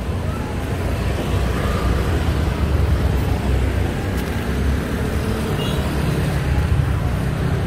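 Street traffic: a steady rumble of passing vehicles, a little louder about two seconds in.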